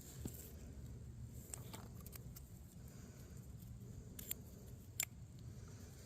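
A few sharp small clicks over a low rumble of handling, the loudest about five seconds in: a pocketknife being taken out and opened to cut into a seed pod.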